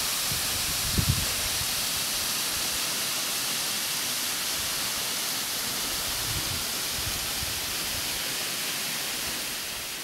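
Steady hiss of water falling in a partly frozen waterfall hung with icicles and an ice cone. A couple of brief low thumps come about a second in and again after six seconds.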